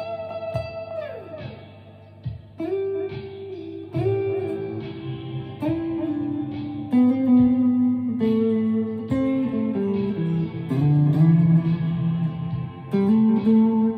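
Chapman ML3 Pro Traditional electric guitar with Seymour Duncan Hot Tele pickups, played slowly in an ambient style: notes and small chords picked one at a time every second or two and left to ring on. About a second in, a held note bends down in pitch.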